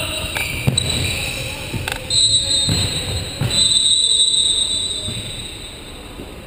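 High squeals of shoes on the hardwood futsal court, with sharp knocks and thuds of the ball being kicked and players moving. The squealing comes in long level stretches that stop and restart, and everything dies down over the last couple of seconds.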